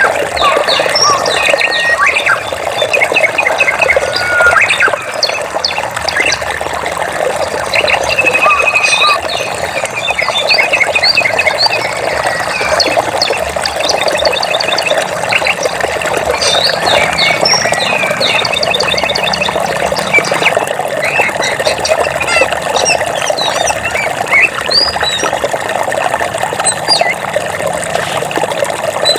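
Many birds chirping and trilling in quick short calls over the steady rush of running water.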